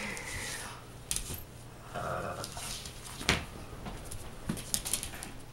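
A Great Dane puppy and a Boston terrier scuffle over a toy, making scattered clicks and clinks, with a short rough noise about two seconds in and one sharp click a little past three seconds.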